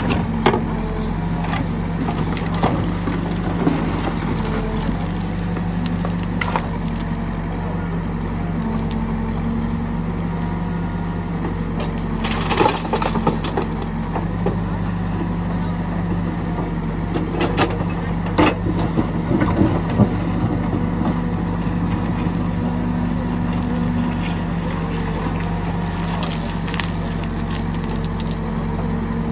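Case 770 backhoe loader's diesel engine running steadily while its backhoe bucket digs into stony soil and swings over to load a tractor trolley. Knocks and rattles of stones and earth in the bucket come now and then, most of them about halfway through.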